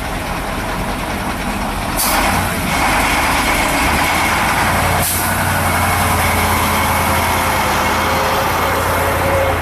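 A heavy vehicle's engine runs steadily and gets louder about two seconds in. Two short bursts of noise come about two and five seconds in.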